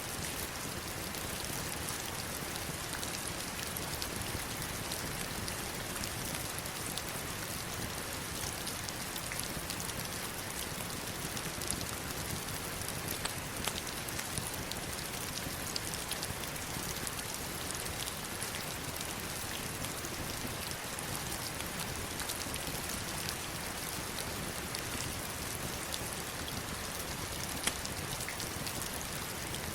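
Heavy rain falling on river stones and flowing water: a steady, bright hiss dotted with sharp ticks of single drops, a few of them louder.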